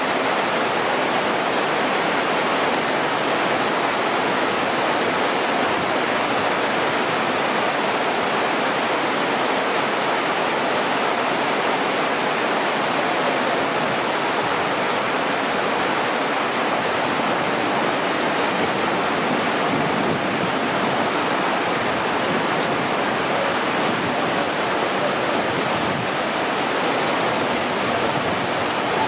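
Heavy rain falling steadily, a dense, even hiss of downpour with water splashing and running off roofs and the train.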